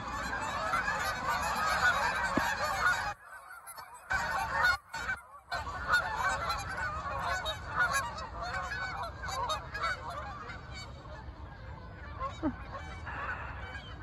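A large flock of Canada geese honking, many calls overlapping into a continuous din. The sound cuts out briefly twice, about three and five seconds in.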